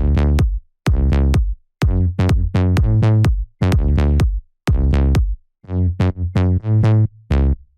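Electronic dance music synth preset demo: a deep, punchy bass-synth riff of short pitched notes in a bouncing rhythm, each note starting with a sharp click, typical of a slap house bass. The riff stops just before the end.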